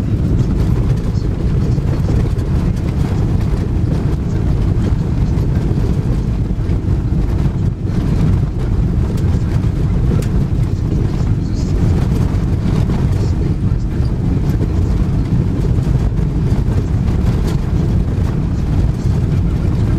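Steady low rumble of a car driving on an unpaved dirt road, heard from inside the cabin: engine and tyres on the rough surface.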